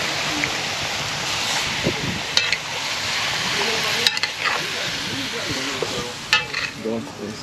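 Seasoned curry meat sizzling in hot oil in a cooking pot as it is stirred, a steady frying hiss broken by a few sharp knocks of the stirring spoon against the pot.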